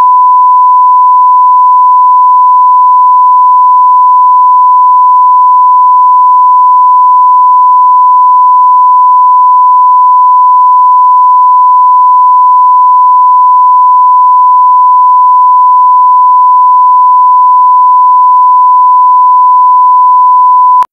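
Broadcast line-up test tone: a steady 1 kHz reference tone played with colour bars at the head of a television master, one unbroken pitch at full level that cuts off suddenly near the end.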